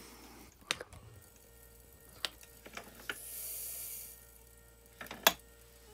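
Small clicks and taps of powder-charging equipment at a reloading bench, the loudest a sharp click about five seconds in. About three seconds in, a soft hiss lasting about a second as gunpowder pours toward a 43-grain rifle charge.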